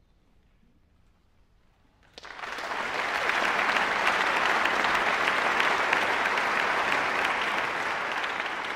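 About two seconds of near silence, then an audience suddenly starts applauding and keeps clapping steadily, easing off slightly near the end.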